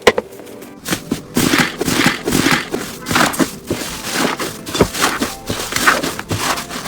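Hands squishing and poking slime: an irregular run of wet crackling, clicks and pops that starts about a second in.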